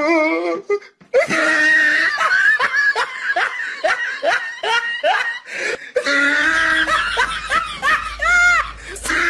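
A person laughing hard in rapid bursts, about three 'ha's a second, after a short break about a second in.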